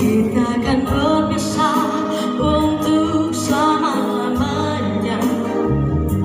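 A woman singing into a microphone over backing music, her voice wavering in pitch with vibrato on held notes.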